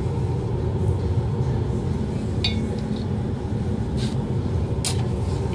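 Steady low rush of a laboratory fume hood's exhaust, with three light clinks about two and a half, four and five seconds in.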